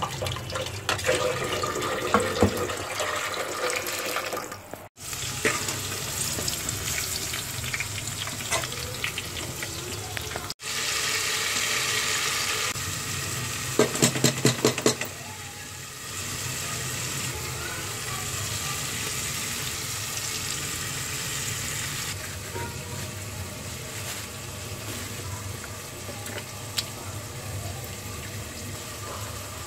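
Kitchen sounds: pots and dishes clattering with water at a sink, then tomato masala sizzling in a pressure cooker. Partway through comes a quick run of metal clinks as a spoon strikes the pot.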